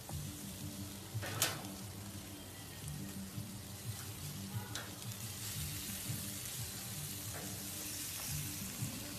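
Chicken sizzling on a hot barbecue grill: a steady hiss of fat and juices on the grates, growing fuller in the second half, with one sharp clack about a second and a half in.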